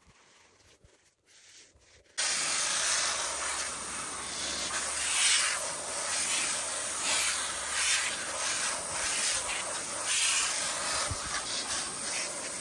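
Stiff brush scrubbing horse running boots in quick back-and-forth strokes, about two a second. It starts abruptly about two seconds in, after near silence.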